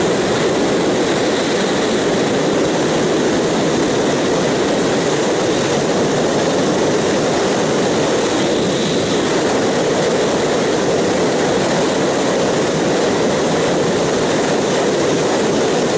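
Steady rush of wind and road noise from a Yamaha R1 sport bike cruising at freeway speed, with the engine held at a constant pace and no revving or gear changes.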